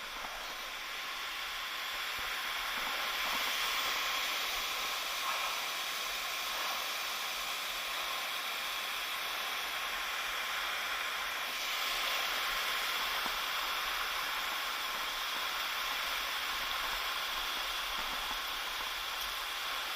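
Waterfall water rushing, a steady hiss.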